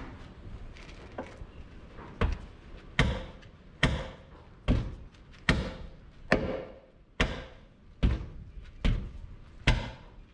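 Hammer blows on metal tire tools at a tractor's rear wheel, ten steady strikes about one a second starting about two seconds in, each ringing briefly: the tools are being driven to work a 16.9-30 rear tire off its rim.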